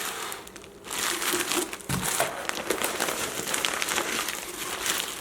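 Meal-kit packaging crinkling and rustling as bagged ingredients are handled, a dense run of crackles, with a soft thump about two seconds in as something is set down.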